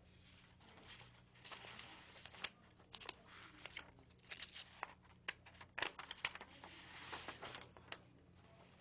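Loose sheets of printer paper rustling and being shuffled as they are leafed through: irregular soft crinkles with a few sharp flicks, starting about a second and a half in and dying away near the end. A faint steady low hum lies underneath.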